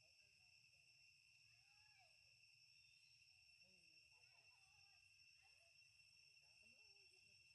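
Near silence with a faint, steady, high insect drone, like crickets or cicadas, and a few faint short gliding calls scattered through it.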